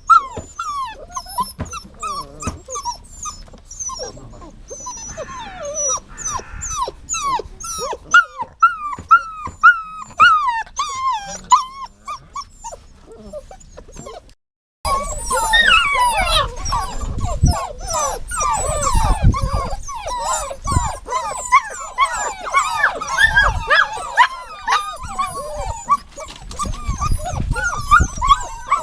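Dogs whining and whimpering: a rapid string of short high-pitched whines that rise and fall. After a brief cut about halfway through, the whines become denser and overlap.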